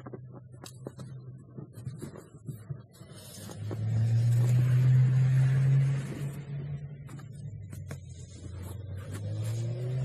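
A car drives past on a snowy street, its engine hum and tyre hiss loudest about four to six seconds in, with scattered soft scrapes and crunches of snow being swept off a car bonnet by hand.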